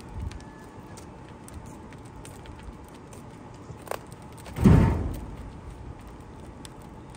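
A heavy chunk of wet wood drops into the firebox of an outdoor wood boiler with one loud thud about four and a half seconds in. The fire crackles faintly around it.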